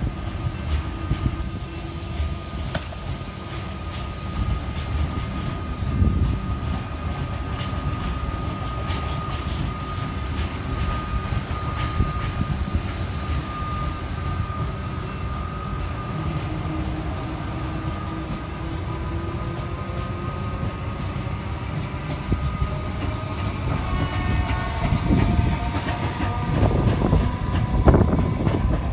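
Melbourne Metro electric suburban trains passing close by: wheels rumbling and clicking over the track under a steady high whine. Near the end several whines rise in pitch and it gets loudest.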